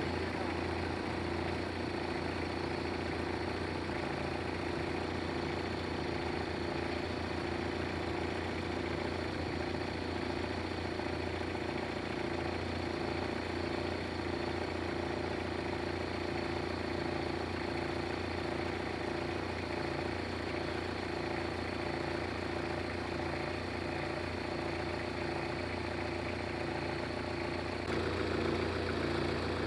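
A motor vehicle engine running steadily at an even, low speed, a constant hum that neither revs up nor dies away. It steps up slightly in loudness near the end.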